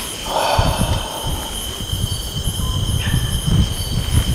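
Night insects chirping, a steady high note with faint rhythmic pulsing above it, over an uneven low rumble; a short rustling hiss comes about half a second in.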